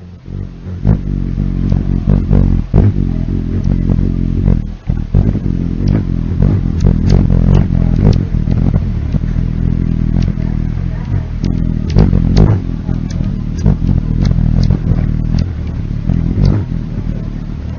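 Hummingbird wings humming up close: a low buzzing drone that wavers slightly in pitch, with short sharp ticks scattered through it.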